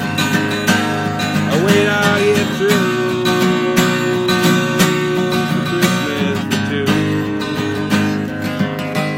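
Acoustic guitar strummed in a steady rhythm, chords ringing between the sung lines of a slow song.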